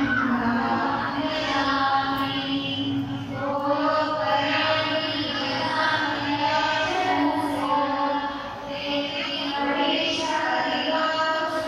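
Devotional chanting: voices singing a mantra in long, held melodic phrases with musical accompaniment.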